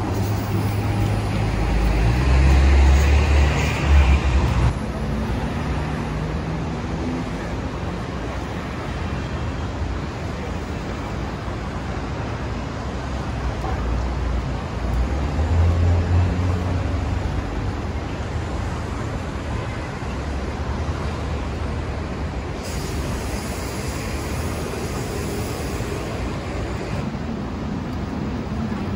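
City street traffic: a steady wash of passing vehicles, with a heavy vehicle's low engine rumble swelling about two seconds in and again around fifteen seconds.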